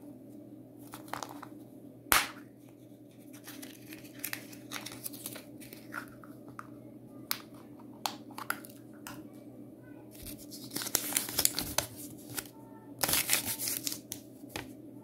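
Hands handling and twisting open a clear plastic Kinder Joy toy capsule: scattered plastic clicks and scrapes, with a sharp click about two seconds in. Paper crinkles near the end as the folded paper leaflet is opened out.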